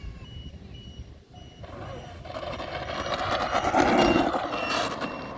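Twin 64 mm electric ducted fans of an RC F-15 jet passing by: a turbine-like whoosh that swells to its loudest about four seconds in and then fades.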